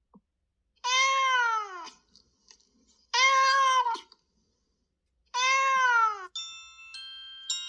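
Pixel 7A ringtone of a cat meowing: three identical falling meows about two seconds apart. Near the end a chiming mallet-bell tone begins, the start of the next ringtone.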